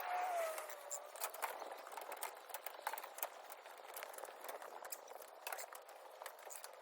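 A sheep bleats once, a drawn-out call that sags slightly in pitch over about a second. Scattered light clicks and rustles follow.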